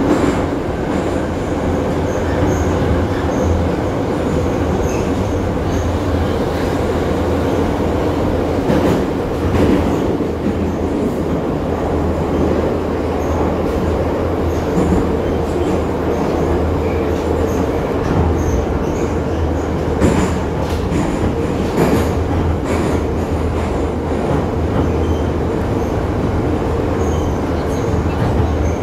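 Moscow metro train running between stations, heard from inside the car: a steady rumble and hum of wheels and motors, with a few sharp clacks partway through.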